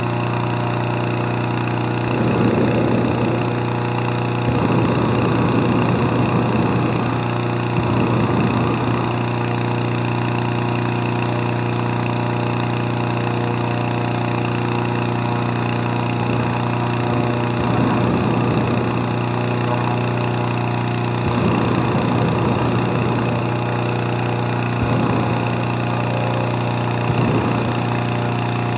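The small petrol engine of a hot-air balloon's inflator fan running steadily, with several short blasts of the propane burner firing into the envelope.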